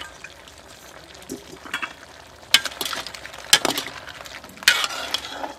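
Metal ladle stirring big shrimp in a pot of hot soup broth, clinking against the pot and the shells: a few sharp knocks, the three loudest about a second apart in the second half, over a low steady hiss from the hot broth.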